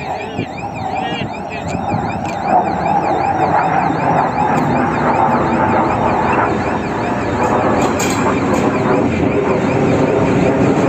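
ChME3 diesel-electric shunting locomotive running as it hauls a passenger coach slowly past, its engine and running gear growing louder as it draws near. A warbling electronic alarm repeats about twice a second over it, fading out about eight seconds in.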